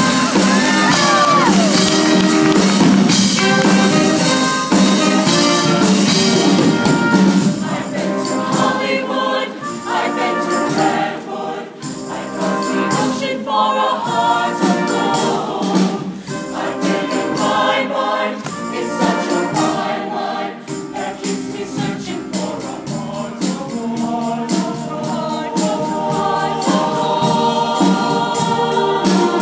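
Show choir singing a song together in harmony, men's and women's voices, over a steady beat of percussion.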